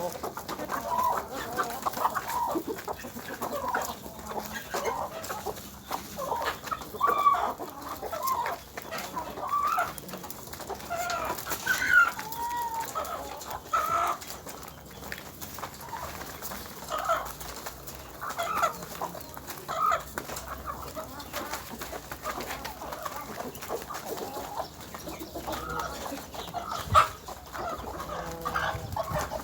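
Chickens clucking steadily, many short calls overlapping from several birds, with scattered sharp clicks and one louder click near the end.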